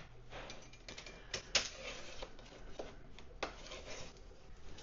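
A 3D-printed plastic kit being pried off a printer's build plate with a scraper: scattered quiet clicks and small snaps as the plastic works loose.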